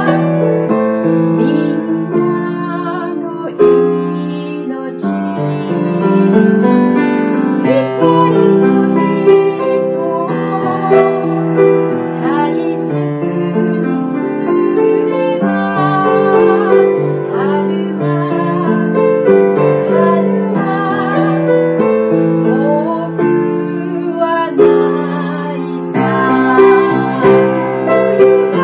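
A woman singing a Japanese song with vibrato, accompanying herself on a grand piano.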